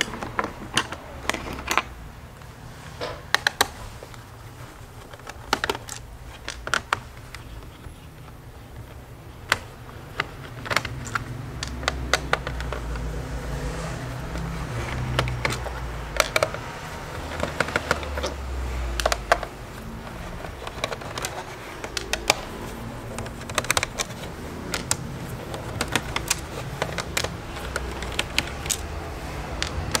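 Irregular small clicks and taps of a screwdriver and screws on a laptop's plastic bottom case as its screws are taken out and handled. A low rumble runs through the middle for several seconds.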